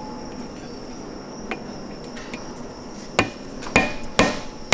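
A steel chisel knocking against the steel sleeve of a burnt-out rubber suspension bushing as it is pried out. There are two faint ticks, then three sharp metallic knocks in the last second and a half.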